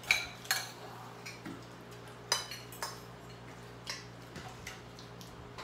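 Forks and spoons clinking against plates and bowls during a meal, in scattered sharp clicks, the loudest just after the start and again about two seconds in.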